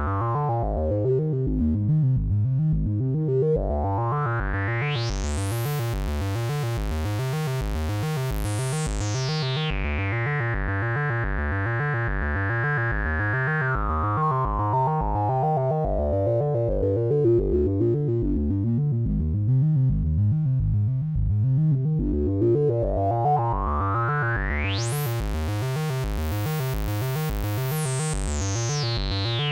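A square-wave oscillator plays a repeating low note pattern through an Erica Synths Polivoks-style resonant filter (VCF). The cutoff is swept slowly by hand: the resonant peak rises to the top a few seconds in, falls back gradually over about ten seconds, then rises again and falls near the end.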